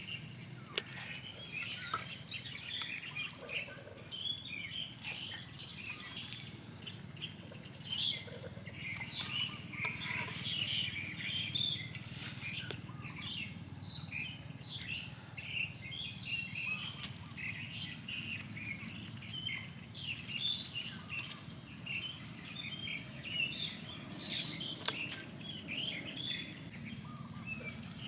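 Many small birds chirping and calling all the while in the surrounding forest, with a few light clicks and taps now and then.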